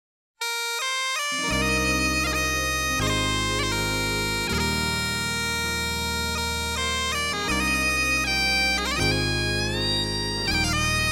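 Background music starting after a brief silence: a bagpipe melody, joined about a second later by a low bass line that steps to a new note every second and a half or so.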